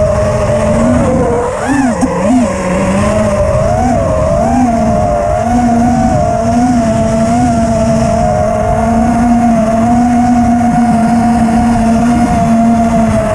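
Racing quadcopter's brushless motors (Grinder 2306) whining in flight. The pitch dips and wavers with throttle changes between about one and three seconds in, then holds fairly steady at cruise.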